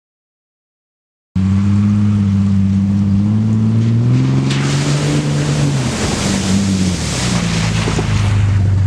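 Jeep Cherokee engine running under load off-road, cutting in abruptly about a second and a half in, its pitch rising, then falling again. From about four and a half seconds a loud rushing noise joins it for about three seconds.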